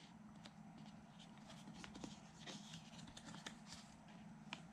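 Near silence with faint scattered taps and rustles of a fingertip prying open and folding back a cardboard flap in a board book.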